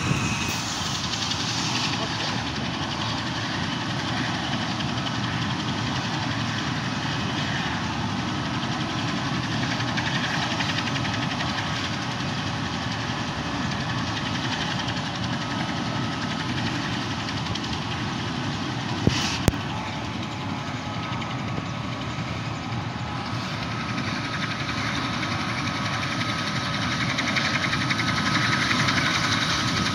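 Ambulance helicopter's turbine engines and rotor running while it sits on the ground: a steady rushing noise with a thin steady whine, growing a little louder near the end. Two brief sharp clicks about two-thirds of the way through.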